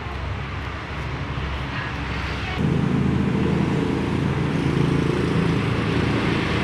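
Steady engine running with traffic-like noise, growing louder and deeper about two and a half seconds in.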